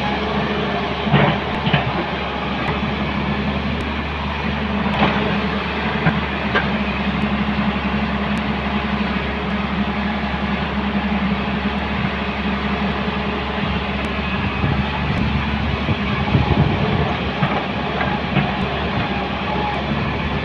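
Heavy diesel engine of a working excavator running steadily, with a few sharp knocks, the loudest about a second in.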